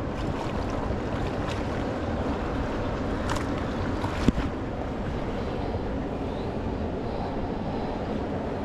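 Steady rushing noise of river water and wind on the microphone, with one sharp click about four seconds in.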